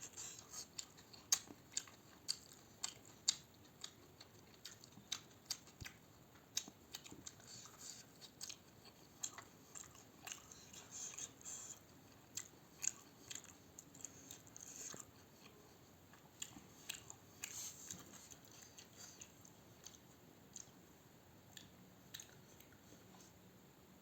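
A person chewing food close to the microphone, with many small irregular mouth smacks and soft crunches that grow sparser in the last few seconds.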